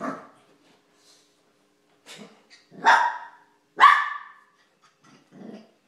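Small dog barking in play: a handful of short barks, the two loudest coming close together about three and four seconds in.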